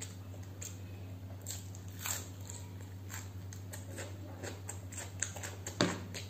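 Close-miked eating sounds: crisp crunching bites and chewing, with fingers working rice on a steel plate, as a string of small sharp clicks, the loudest just before the end. A steady low hum runs underneath.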